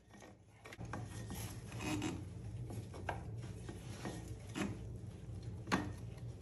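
Rubber drive belt being worked by hand onto a bagger motorcycle's rear pulley: rubbing and scraping with a few sharp clicks. A steady low hum comes in about a second in.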